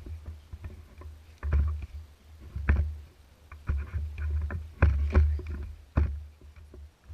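Gusts of low rumble on a camera microphone, with irregular knocks and clatter of handling about every second or so.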